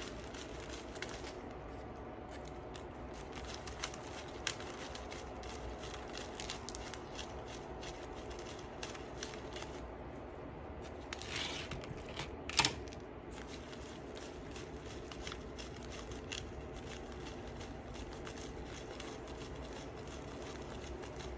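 Scattered faint clicks and light rustling of small beads being handled and scooped up for stringing, with a sharper click about twelve and a half seconds in, over a steady low hum.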